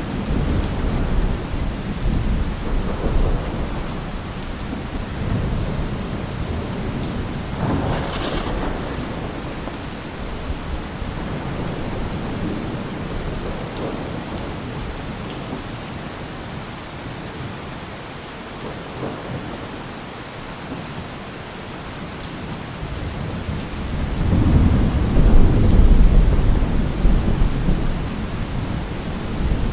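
Thunderstorm: steady rain with rolling thunder. A rumble fades over the first few seconds, a short crack comes about eight seconds in, and a loud rumble of thunder builds and rolls from about 24 to 27 seconds.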